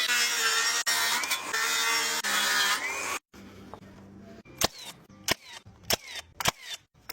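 A power tool runs loudly for about three seconds, its pitch shifting, then stops abruptly. This is followed by a series of about five sharp clicks, evenly spaced a little over half a second apart.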